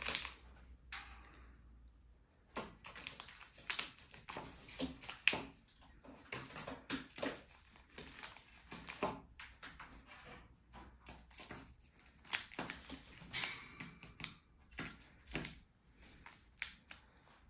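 A Eurasian jay's claws and beak tapping and clicking on a laminate tabletop as it hops about and pecks, in short irregular taps.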